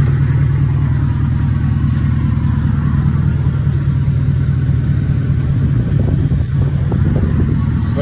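BMW 745 engine idling with a steady, low rumble.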